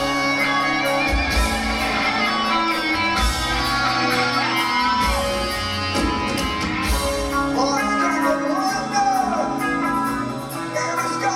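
Live heavy metal band playing loud: distorted electric guitars, bass guitar and drums, with a lead line that bends up and down in pitch over the steady drum beat.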